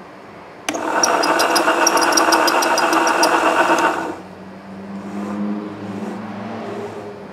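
Motor of a homemade voice-coil winding jig starting suddenly and running for about three seconds as it spins the former to wind copper wire, a steady whine with fast light ticking over it. It then drops to a quieter, lower hum.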